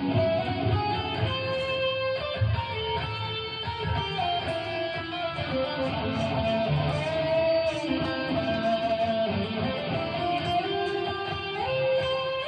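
Harley Benton Fusion-T electric guitar with EMG pickups played through an amp with a scratchy, distorted tone. Continuous single-note lead lines with some notes held and bent.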